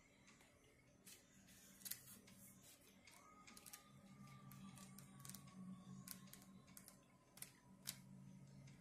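Faint, scattered clicks and light snaps of oracle cards and paper being handled by hand, over a faint low hum.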